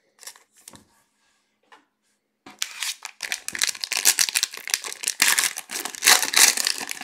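Trading-card pack wrappers, cellophane cello packs, being torn open and crinkled by hand. There are a few faint clicks at first, then about two and a half seconds in a dense, continuous crackling begins.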